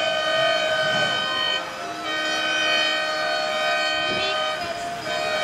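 Several ship horns sounding together as a steady, held chord of different pitches, a launch salute. The horns drop out briefly about two seconds in and again near the end, with crowd voices beneath.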